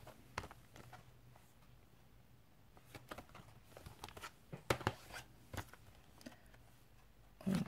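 Quiet handling of clear stamp sets in plastic packaging: a few light clicks and taps as the plastic sleeves are picked up and moved, most of them in the middle of the stretch.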